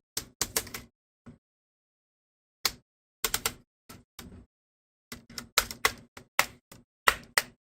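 Plastic clips of a laptop's screen bezel snapping loose as the bezel is pried off the display lid: a string of sharp, irregular clicks, sparse and with a pause early on, then coming thick and fast in the second half.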